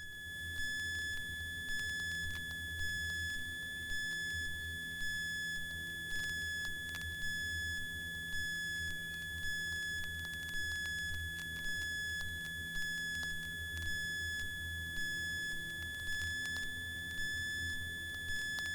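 Steady high electronic whine with a fainter tone pulsing about once a second, over a low hum of the Cessna 172's engine, as heard through the aircraft's intercom audio feed between radio calls.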